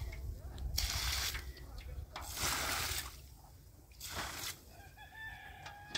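Water gushing from a tipped metal bucket onto dry dirt, in three short pours. A drawn-out pitched call sounds in the background near the end.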